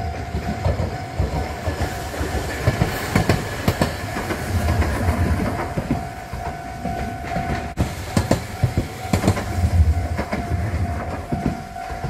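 Kagoshima City electric tram running over the rails, a low rumble with wheels knocking over rail joints. From about halfway a level-crossing warning bell rings steadily as a tram rolls through the crossing.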